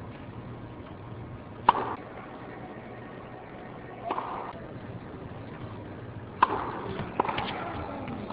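Tennis ball struck by a racket in a rally, four sharp pops spread over several seconds, each with a short echo off the indoor arena.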